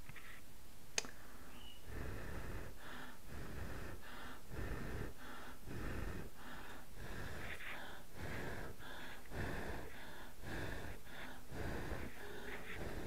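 A person blowing short, repeated puffs of breath onto a jar of hot liquid paraffin to cool it so it sets, about two puffs a second, starting about two seconds in.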